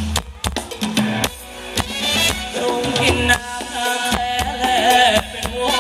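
Live band playing Thai ramwong dance music: a steady drum and percussion beat under a melody line, with no singing.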